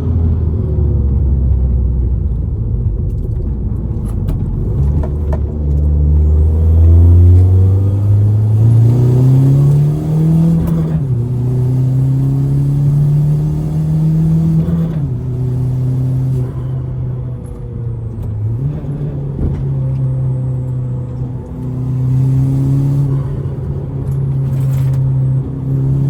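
Hyundai Genesis Coupe 2.0T's turbocharged four-cylinder engine driving, its pitch climbing steadily under acceleration, then dropping sharply at gear changes about eleven and fifteen seconds in, before running fairly steady.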